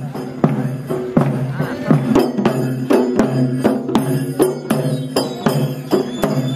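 Village folk procession music: small hand cymbals struck in a quick, steady beat with other percussion, over a held melodic line.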